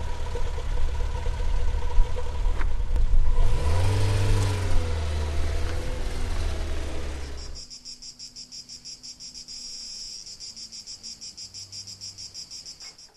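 A car engine running with a low steady hum, rising and falling in pitch briefly about four seconds in. It cuts off abruptly, and crickets chirp in quick, even pulses, about five a second.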